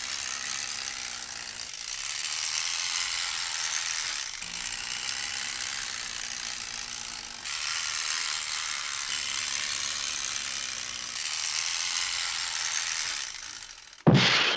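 Spring-driven clockwork motor of a tinplate Kovap Porsche toy tractor running, its gear train giving a steady, fast ratcheting whir that breaks off briefly a few times. A sudden loud sound cuts in near the end.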